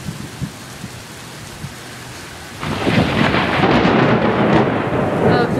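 Heavy rain falling steadily, then a loud thunderclap breaks in about two and a half seconds in and goes on rumbling.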